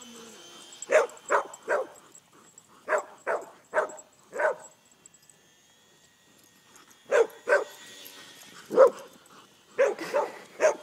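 Dogs barking in quick runs of three or four sharp barks, with a pause of a couple of seconds in the middle, as they chase a small RC airplane.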